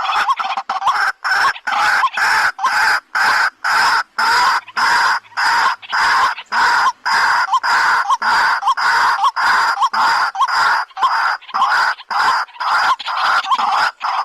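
White-breasted waterhen (dahuk) calling: a loud, unbroken series of harsh, croaking notes repeated about three times a second.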